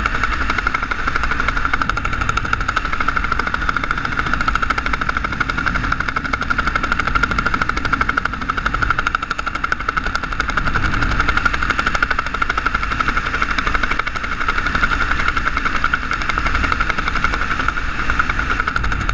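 Wind rushing over a GoPro Hero 3's microphone under an open parachute canopy: a steady rush with a fast flutter running through it.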